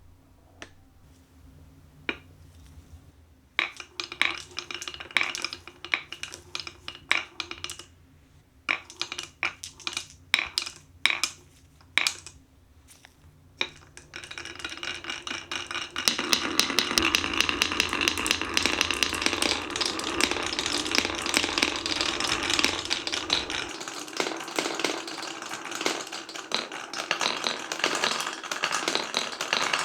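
Glass marbles rolling and clacking along a wooden marble-run track. First a few isolated clicks, then from about four seconds intermittent runs of rattling. About halfway through it turns into a dense, continuous clatter of many marbles rolling together.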